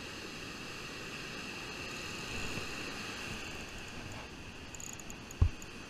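Steady hiss of surf and wind on a beach, with one short, sharp thump about five and a half seconds in.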